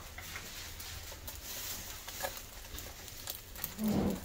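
Bacon and scrambled eggs frying in pans on an electric stove: a steady sizzling hiss with scattered small pops. A short louder low sound comes near the end.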